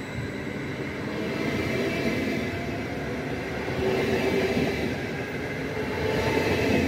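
Westbahn Stadler KISS double-deck electric multiple unit departing, its carriages rolling steadily past the platform as it gathers speed, with a faint whine that slowly rises in pitch.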